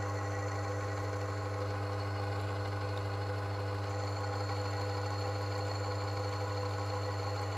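Oil friction-test machine running steadily under a two-weight load, its motor turning the test surface against a steel ball bathed in heated engine oil during a two-minute wear test. A steady, even hum.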